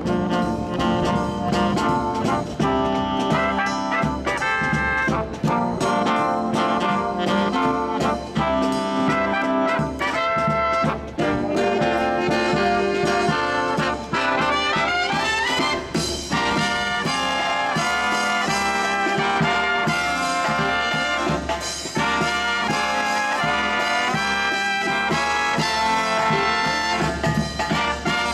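Marching brass band playing an upbeat tune, trumpets and trombones leading, with a quick rising run about halfway through.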